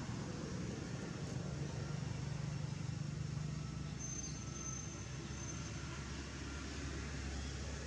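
Steady low rumble of distant engine noise, with a brief thin high tone about four seconds in.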